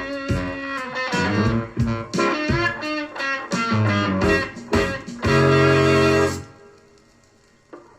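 Rock music with guitar and bass playing busy passages. About five seconds in, a loud full chord is held for about a second, then cuts away and fades to almost nothing. The music comes back at the very end.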